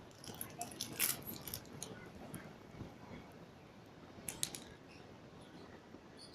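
Scattered small sticky clicks and crackles of slime being handled, a run of them in the first two seconds and another short burst about four seconds in.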